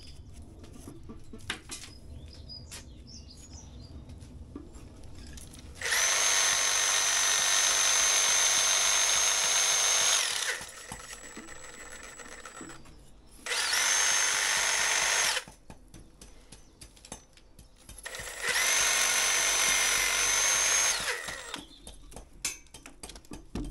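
Cordless reciprocating saw cutting into a brickwork opening in three runs of a few seconds each, with a steady high whine while it runs. Each run starts and stops abruptly. Before the first run there are only faint knocks.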